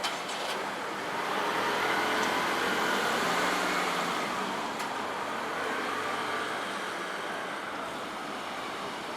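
Road traffic noise at a railway level crossing: a steady rush of vehicles that swells as one passes, from about two to five seconds in, with a few sharp clicks.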